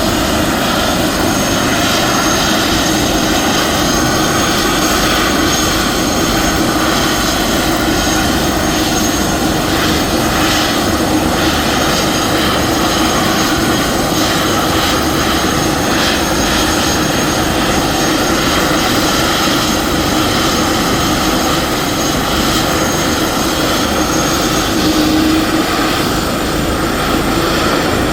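Airbus H145 D3 helicopter running steadily, its twin turboshaft engines and rotor at a constant, loud pitch.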